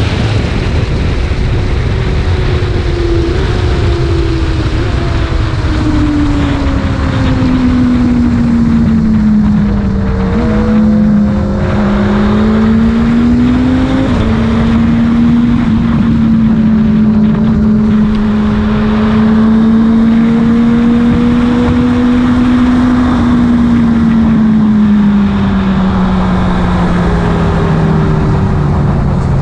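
Racing sportbike engine running hard at speed, heard from an onboard camera under heavy wind rush. Its pitch holds high through most of the stretch, then falls steadily over the last few seconds as the bike slows for a turn.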